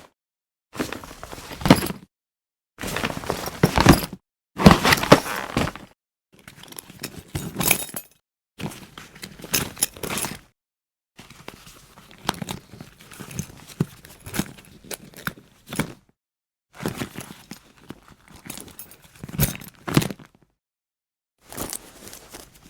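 A series of about eight short travel bag handling takes, each cut off by a brief gap of silence: fabric rustling, with sharp clicks and knocks from the bag's fittings and thuds as it is moved and set down.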